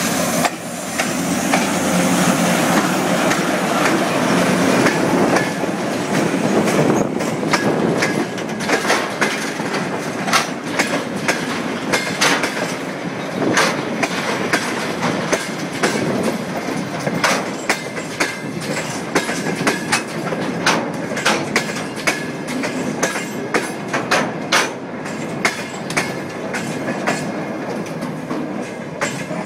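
A diesel locomotive passes close by with its engine running. It is followed by a slow freight train of tank cars and open wagons rolling past, the wheels clicking and knocking over the rail joints from about a quarter of the way in.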